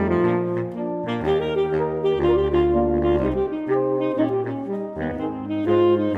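Background music: a jazz-style tune of held melody notes over a moving bass line.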